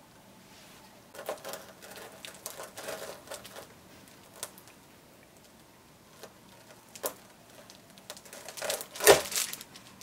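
A large kitchen knife pressed down through a crunchy cornflake-and-oat granola bar, crackling and crunching in short bouts as the bar resists the blade. A few sharp single cracks follow, and the loudest crunch comes near the end.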